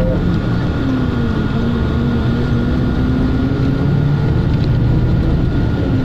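Moving road vehicle heard from inside: a steady low rumble with a motor tone that slowly falls in pitch, over a thin, high, steady whine.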